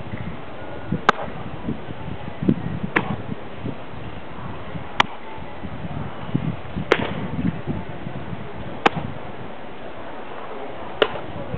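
A baseball smacking into leather gloves during a game of catch, six sharp pops about two seconds apart as the ball goes back and forth.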